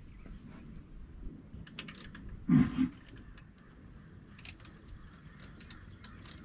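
A wrench and small metal parts clinking and clicking, several light separate clicks, while the old breather is worked out of the winch housing. About two and a half seconds in there is one short, louder low sound.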